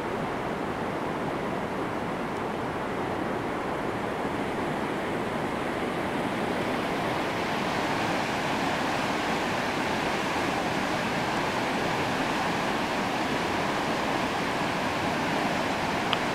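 Steady rushing noise that grows louder and brighter about halfway through, with a brief faint click near the end.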